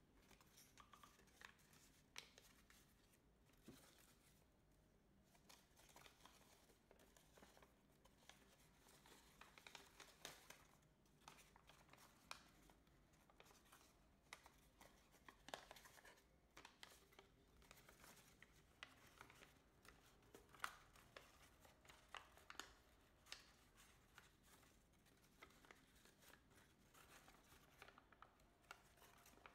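Faint crinkling and crackling of a large sheet of origami paper being folded and pressed into shape by hand, with scattered small rustles and ticks.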